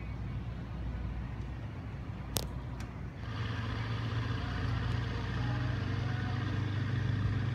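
Steady low engine hum, growing louder and fuller from about three seconds in, with one sharp click a little before that.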